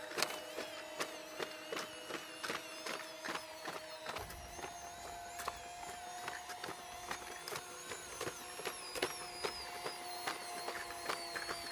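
Boston Dynamics Spot quadruped robot walking: a steady whine from its electric-driven hydraulic pump, with a quick, irregular run of clicks and taps from its leg actuators and footfalls. The whine steps slightly higher about four seconds in.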